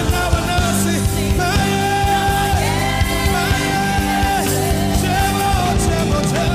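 Gospel worship music: a band with drums and bass under long, held sung or keyboard notes.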